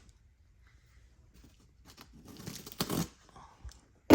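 Sealed cardboard fireworks case being torn open, with tearing and crinkling from about two seconds in, loudest near three seconds.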